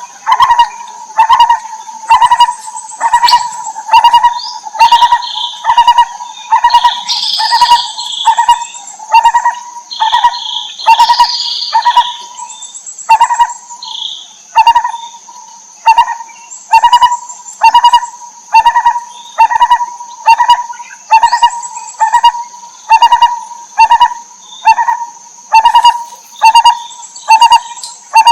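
Lineated barbet calling: a mellow note repeated evenly, about one and a half times a second, over a steady high whine. Some higher bird chirps join in during the first half.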